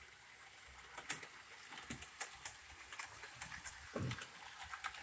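Model train rolling on its track, with faint irregular clicks of the wheels over the rail joints. There is a soft thump about four seconds in.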